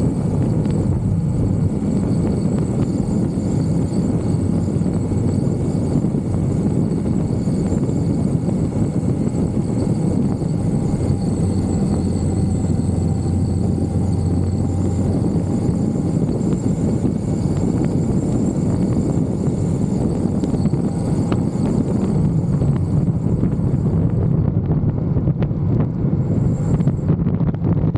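Indian Scout V-twin motorcycle engine running steadily at cruising speed, a continuous low drone mixed with wind rushing over the microphone.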